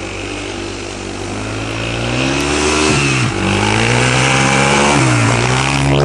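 Yamaha Raptor ATV engine revving through snow, steady at first, then rising in pitch and getting louder from about two seconds in as the quad comes close. The engine note dips briefly twice, about halfway through and near the end.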